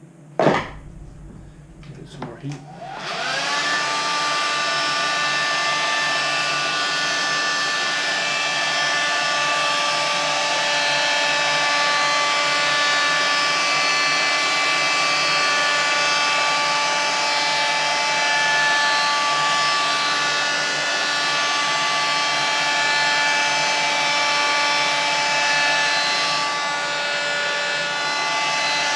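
A knock, then a few light clicks, then an electric heat gun switches on about three seconds in, its fan spinning up with a brief rising whine and then running steadily with a hum and a rush of air. It is heating the headlight housing to soften the butyl sealant so the lens can be separated.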